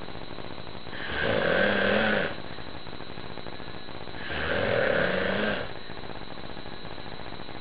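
Loud snoring: two long snores about three seconds apart, each lasting over a second, with a hum-like pitch that rises and then falls.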